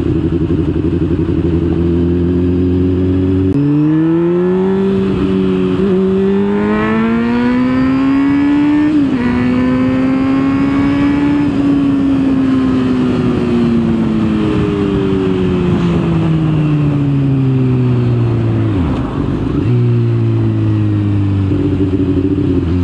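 Honda motorcycle engine under way, heard from the rider's seat. Its note is low and steady at first, then climbs as the throttle opens a few seconds in and dips briefly about nine seconds in. From the middle it falls steadily as the bike slows, settling on a lower note near the end.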